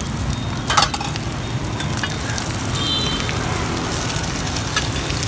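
Bột chiên (fried rice-flour cake) sizzling in oil on a street-cart pan, steady throughout, with one sharp clatter about a second in.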